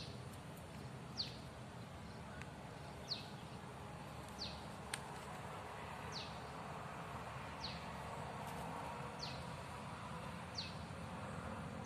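A bird's short, high call that falls in pitch, repeated about every one and a half seconds over a faint, steady outdoor background.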